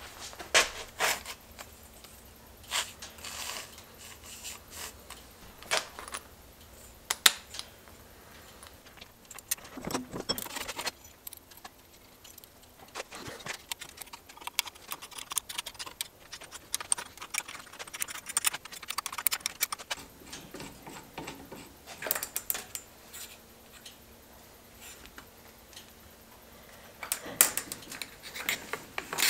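Small steel parts and a steel ruler being handled and set against a vise: irregular light metallic clinks, taps and short scrapes, with a longer scrape about ten seconds in.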